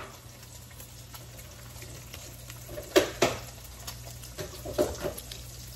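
Light kitchen clatter: a few sharp clacks, a pair about three seconds in and another pair near five seconds, over a steady low hum.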